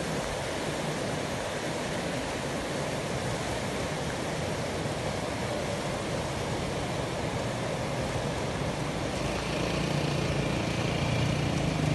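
Steady outdoor rushing noise, with a motorcycle engine coming in close and droning low over the last few seconds as it passes.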